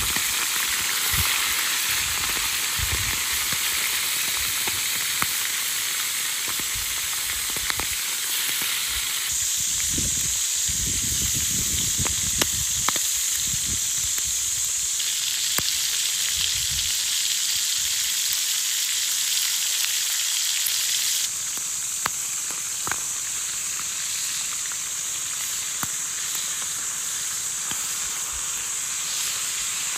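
Squid rings frying in sunflower oil in a pan: a steady sizzle with scattered sharp pops of spitting oil, somewhat quieter in the last third.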